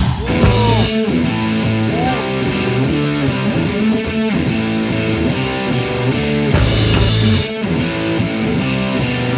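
Background music led by a guitar, with notes that bend in pitch.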